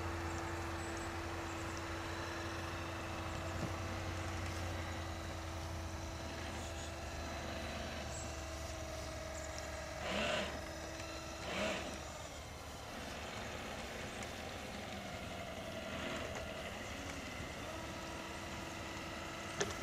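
Battery-powered radio-controlled model boat's electric motor running with a steady whine over a low hum that fades away. Two short, louder sounds break in about ten seconds in and again a second and a half later.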